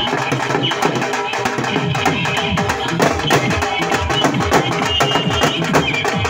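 Punjabi dhol drums beaten with sticks in a fast, dense rhythm.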